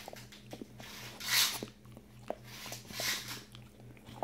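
A Dalmatian and a Chihuahua puppy play-fighting at close range: two breathy, hissing huffs, one about a second in and one about three seconds in, among light clicks and rustling of their mouthing and scuffling.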